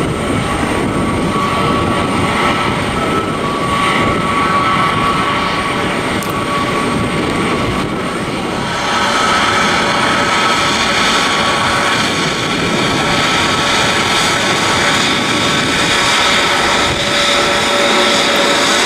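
Airbus A320neo taxiing: its Pratt & Whitney geared turbofan jet engines running at taxi power, a steady rush with a whine on top. The sound grows louder and hissier about nine seconds in.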